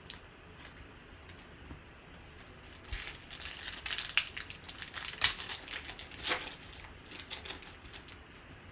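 Crinkling and rustling of trading cards and their packaging being handled, a dense spell of crackling from about three seconds in until about seven seconds in, with scattered small ticks around it.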